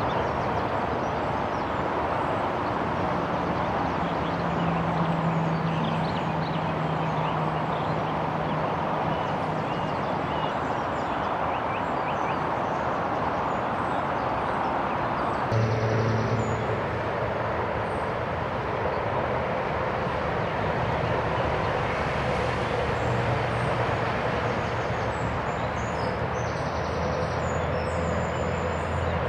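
Steady traffic noise from a nearby road, an even rushing hum that never lets up, with a few faint high chirps over it.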